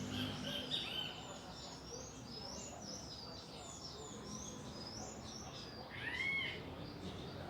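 Small birds chirping: a series of short rising chirps through the middle, and a single arched call about six seconds in.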